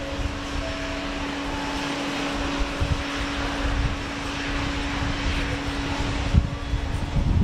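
Boeing 747-8F freighter's four GEnx turbofan jet engines at takeoff power during the takeoff roll and rotation: a steady jet roar with a constant low hum and uneven low rumble. The higher hiss thins out about six seconds in.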